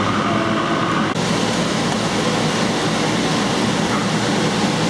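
Steady loud rushing noise of inflatable bounce-house blowers, with an abrupt change about a second in.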